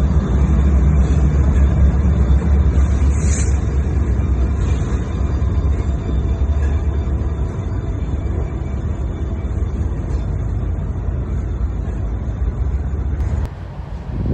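Freight train running by, a steady low rumble. It cuts off suddenly about a second before the end.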